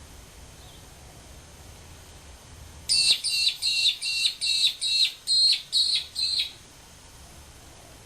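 A bird calling: a quick run of about eleven high, sharp notes, each dropping slightly in pitch, lasting about three and a half seconds and starting about three seconds in.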